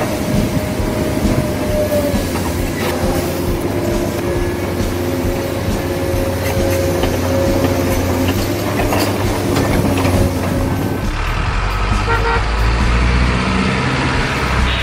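Truck horn sounds in long, slightly wavering held tones over a steady low engine rumble. About eleven seconds in the horn tones stop and the engine rumble carries on, heavier and lower.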